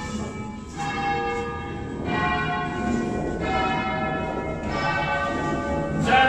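The ring of eleven bells in A at Verona Cathedral, most of them cast by Cavadini in 1931, rung by hand from ropes. Big bells strike one after another about every second and a half, each stroke ringing on under the next. The loudest stroke comes near the end.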